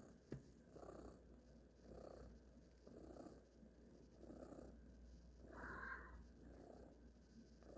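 A cat purring softly, the purr swelling and fading about once a second with its breathing. A short click comes just after the start, and a brief higher-pitched sound about six seconds in.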